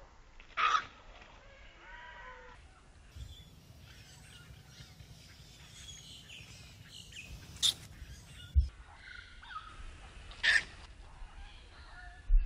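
Birds calling: three short, loud, harsh calls, about a second in, near eight seconds and near ten and a half seconds, among softer chirps. A few low bumps.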